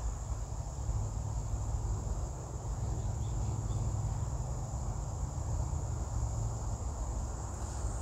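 Steady, unbroken high-pitched chirring of insects, over a low rumble.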